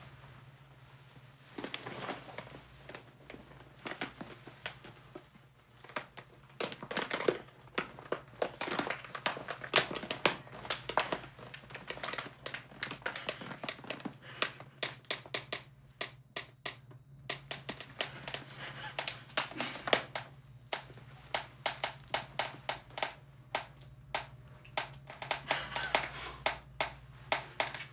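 A sealed bag of chips crackling and crunching under a person's weight as he sits on it: a long run of sharp crinkles and crunches, sparse at first and coming thick and fast from about seven seconds in, with a brief pause about halfway.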